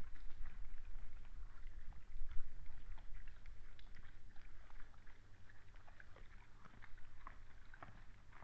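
Red deer and wild boars feeding: irregular small crunches and rustles in the feed and dry leaf litter, over a low steady hum.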